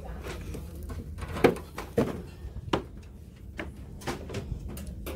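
Framed pictures knocking and clacking against each other as they are flipped through in a rack: a string of short sharp knocks, the loudest about one and a half seconds in.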